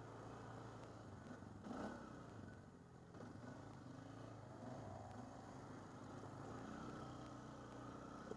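ATV engine running at low trail speed, its pitch rising and falling with the throttle over rough ground, with one brief knock about two seconds in.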